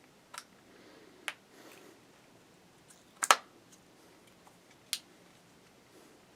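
A few scattered sharp clicks from handling a GoPro camera that will not power on, the loudest a quick double click about three seconds in.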